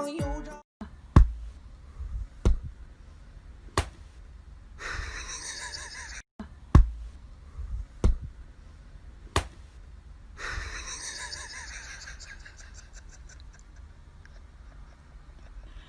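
Sharp knocks in two runs of three, each about a second and a half apart, over low room noise with stretches of hiss.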